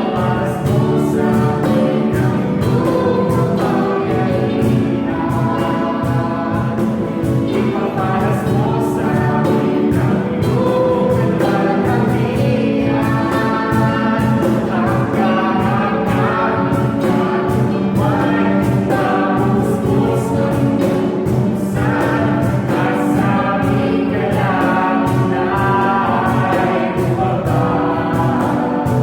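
Gospel worship song, with several voices singing together over a band accompaniment and a steady beat.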